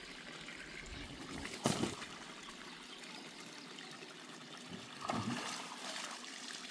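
Water trickling steadily, with a single sharp knock about a second and a half in and a softer clatter near the end.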